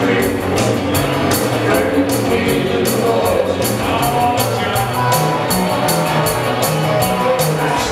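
A live country band playing: electric bass, drum kit, acoustic guitar and electric guitar. The drums keep a steady beat.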